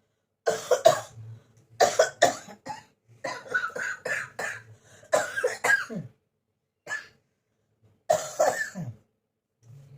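A person coughing in repeated bouts of several coughs each, with a single cough about seven seconds in: a bad cough with a cold that has gone on for many days.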